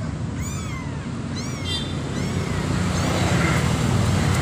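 Kittens mewing: three or four short, high cries, each rising and falling in pitch, in the first couple of seconds, fading out after that. Under them a steady low rumble that grows slightly louder toward the end.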